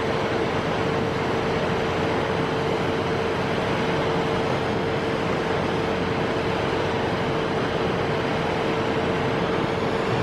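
Waterfall: a steady rushing of falling water, even and unbroken, with a faint steady hum running under it.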